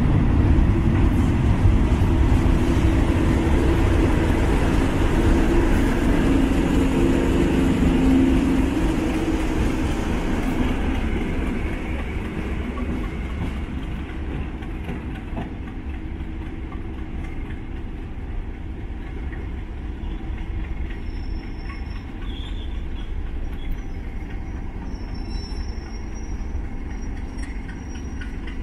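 Class 37 diesel locomotives of a snowplough train passing, their English Electric V12 engines running loudly with steady rail and wheel noise for about the first ten seconds, then fading as the train draws away. Faint high-pitched wheel squeal comes in the second half.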